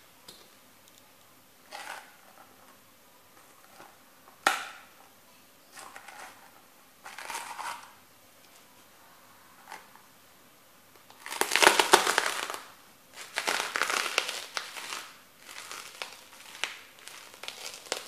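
Boot soles stomping on crunchy bread sticks and crushing them. A few separate crunches come first, then a long, loud run of crunching and grinding a little past halfway, followed by repeated crunches as the crumbs are trampled.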